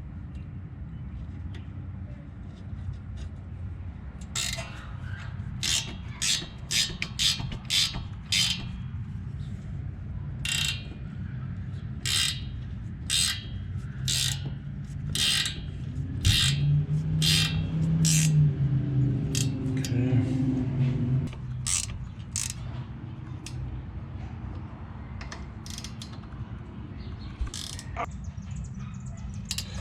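Sharp metal clicks and clinks, irregular and sometimes close together, as an adjustable wrench is worked on a brake caliper bolt, over a steady low hum. Around the middle a louder low tone swells and wavers for a few seconds, then fades.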